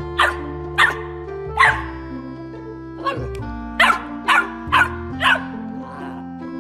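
Boxer puppy barking, about seven short barks in two bunches with a pause between them, over background music with held chords.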